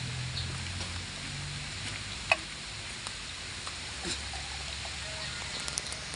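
Steady rain patter, with faint scattered ticks and one short sharp crack a little over two seconds in.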